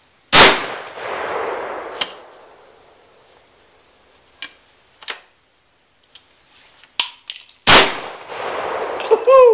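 Two shots from an H&R single-shot 10-gauge shotgun with a 36-inch barrel, about seven seconds apart, each followed by a long echoing tail. Between them come the light clicks of the break-open action being opened, reloaded and closed.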